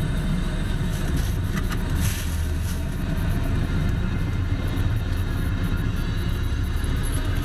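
Car engine idling, a steady low rumble heard from inside the cabin of the stationary car.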